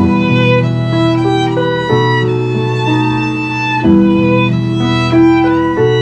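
Violin playing a slow melody with bowed, sustained notes. Beneath it a low sustained accompaniment shifts to a new chord about every two seconds.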